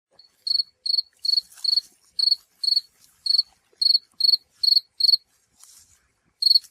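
Cricket chirping: about a dozen short, high-pitched chirps, roughly two a second, with a brief gap near the end before one last chirp.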